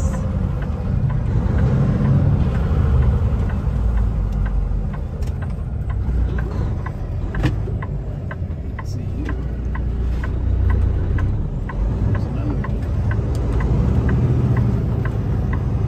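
Road and engine rumble inside the cab of a moving Kenworth T680 semi truck, steady with slight swells. Through the middle a faint, even ticking about twice a second, the turn signal's clicker.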